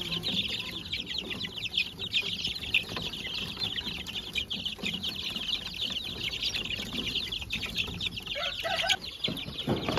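A pen of young chickens, mixed native and gamefowl chicks, peeping constantly: a dense chorus of many quick, high, falling peeps overlapping one another.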